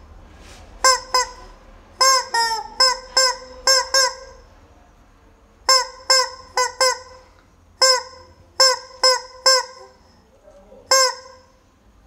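Rubber chicken squeeze toy squawking, about eighteen short honking squeaks on one steady pitch, coming in quick runs of two to four with short pauses between.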